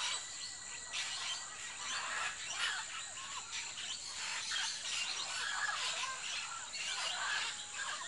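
A flock of parrots, macaws and small parakeets, calling together: a continuous, dense chatter of many short, overlapping squawks and screeches.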